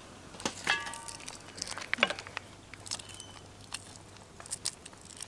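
Raw prawn shells being peeled off by hand: small, irregular crackles and clicks as the shells crack and come away from the flesh.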